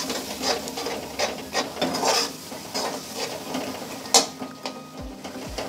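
Slotted steel spatula scraping and clinking against a pan as it stirs a masala of tomatoes and spices frying in oil, in irregular strokes over a light sizzle, with one sharper scrape about four seconds in.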